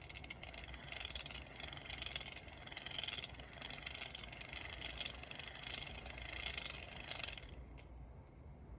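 Daiwa Blast spinning reel being cranked, giving off a continuous rattly grinding whir that stops about seven seconds in. This is the heavy abnormal noise the reel makes despite few fishing trips.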